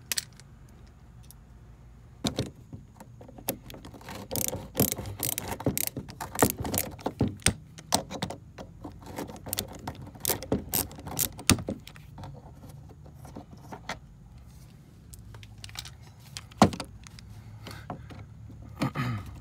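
Ratcheting screwdriver clicking in quick irregular runs as it backs out a crusty Torx screw on a license plate light fixture, with a few more clicks near the end.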